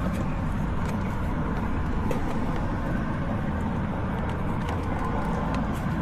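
Steady low vehicle rumble, with a few faint light clicks scattered through it.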